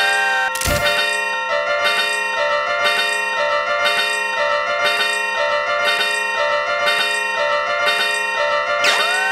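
Level crossing warning bells ringing fast and repeatedly, the clanging stepping between two pitches. A heavy clang comes just under a second in, and near the end a siren-like tone sweeps up and holds.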